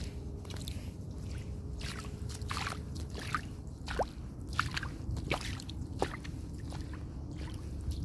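Footsteps squelching and splashing through wet sand and shallow water at a walking pace, over a steady low rumble.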